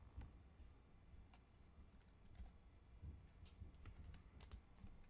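Near silence with faint, scattered clicks and rustles of trading cards and plastic sleeves being handled.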